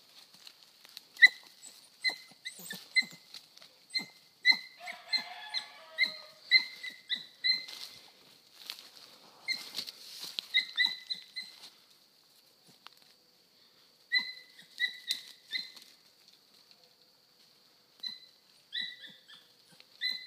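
Dog pups yipping on a rabbit's trail: short, high-pitched yips in runs of one or two a second, breaking off for a couple of seconds now and then. They show that a pup has picked up the rabbit's scent and is giving chase.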